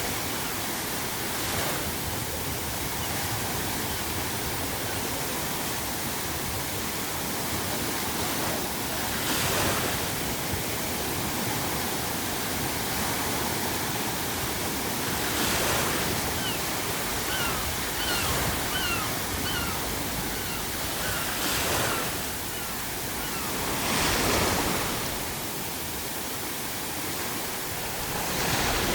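Ocean surf washing steadily, with waves breaking and swelling louder every few seconds. Around the middle, a seagull gives a quick run of short cries over the surf.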